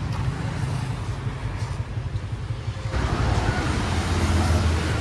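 Motor vehicle noise: a steady low rumble with road noise, growing louder and fuller about three seconds in.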